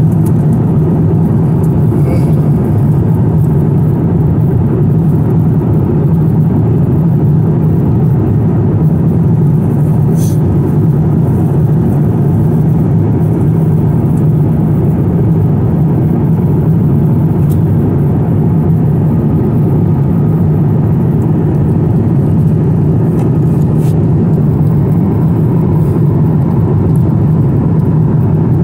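Steady, even rumble of an airliner cabin in cruise flight: jet engine and airflow noise heard at a window seat.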